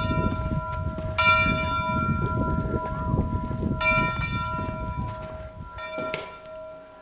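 A large metal bell struck repeatedly at an uneven pace: three strikes about two seconds apart, each ringing on with a clear, steady tone, following on from a strike just before. Low knocks and scuffs sound beneath it.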